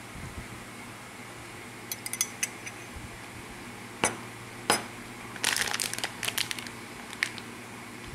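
A metal spoon and a ceramic mug clink on a glass tabletop, with a few sharp clinks including two louder ones in the middle. This is followed by a quick run of crinkling and crackling from a plastic packet being handled.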